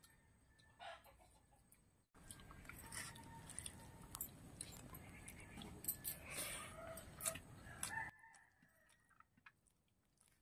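Faint farmyard chickens: a rooster crowing and hens clucking. In the middle comes a louder, noisy stretch of several seconds that starts and stops abruptly.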